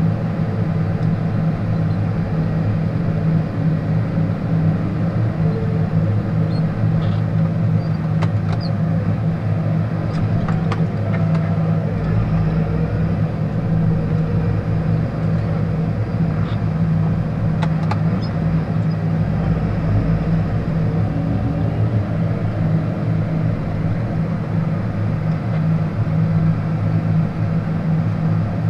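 John Deere tractor's diesel engine running steadily, heard from inside the cab while plowing snow, with a deeper rumble joining for about ten seconds in the middle and a few faint knocks.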